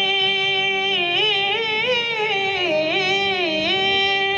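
A singer holds one long, high sung note in a Sufi devotional song addressed to Khwaja, breaking into a run of quick melodic ornaments about a second in and settling back onto the held note near the end, over a faint steady drone.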